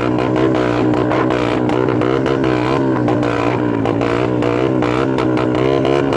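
Motorcycle engine revved in a bōsōzoku-style throttle 'call', its pitch wavering up and down continuously over a steady low drone, with many short crackles.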